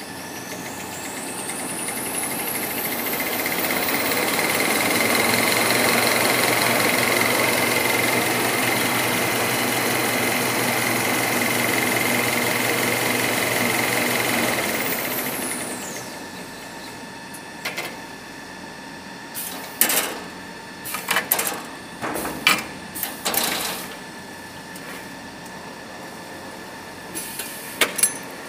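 Toilet paper rewinding machine speeding up with a rising whine, running loud and steady while it winds a tissue log, then winding down with a falling whine. After it slows there are a number of short sharp sounds from the machine's working parts.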